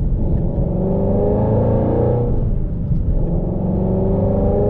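2018 Ford Shelby GT350's 5.2-litre flat-plane-crank V8 pulling under acceleration through long-tube headers and an X-pipe, with the catalytic converters and factory active exhaust kept. The revs climb, drop about two seconds in at a gear change, then climb again.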